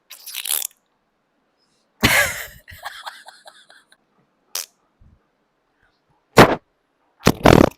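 A person making short, explosive spitting and throat noises right up against the microphone, about five separate bursts with crackly sputtering after the second.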